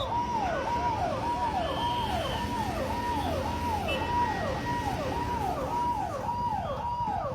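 Emergency vehicle siren sounding a rapid repeating falling wail, about two sweeps a second, over low background rumble.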